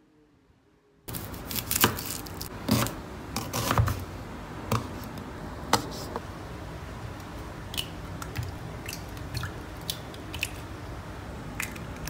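Kitchen knife slicing red chilli on a plastic cutting board: irregular sharp taps of the blade on the board, starting about a second in, loudest in the first few seconds and lighter after.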